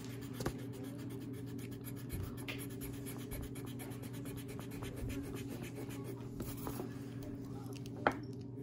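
Faint scratchy rubbing of a pencil and its eraser against paper as the drawing is worked over, over a steady low hum, with a short click near the end.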